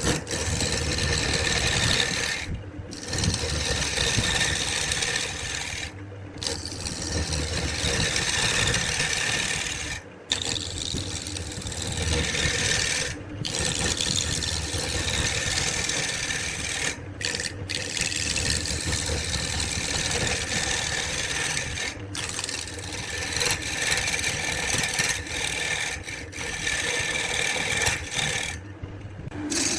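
Abrasive rubbing on wood, a continuous rough scraping broken by short breaks every few seconds.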